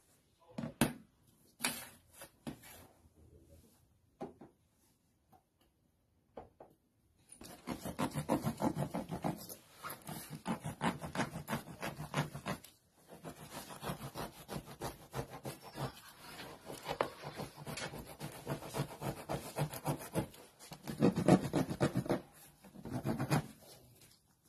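A blade sawing through the wall of a plastic jerrycan in fast, rasping back-and-forth strokes, with a short pause partway through. A few scattered knocks and taps come before the sawing starts.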